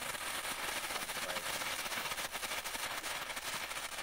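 Small ground firework fountain burning in grass, spraying sparks with a steady loud hiss full of rapid crackling pops.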